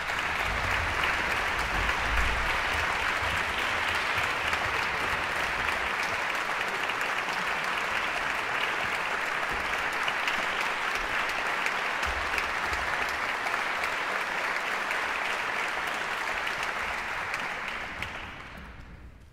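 Audience applauding steadily in a concert hall, dying away near the end.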